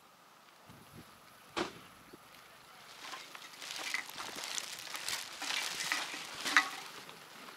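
Footsteps walking through grass with a crackling rustle, which grows louder from about three seconds in. A single sharp click comes about a second and a half in.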